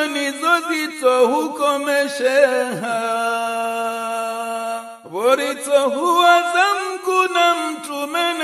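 A man's voice chanting an Islamic devotional song in long, ornamented melismatic lines. A note is held steady for about two seconds, breaks off briefly around five seconds in, and the voice slides upward into the next phrase.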